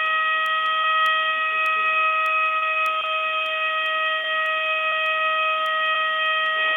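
Planet Fitness lunk alarm sounding, one steady unbroken horn-like tone, heard over a telephone line.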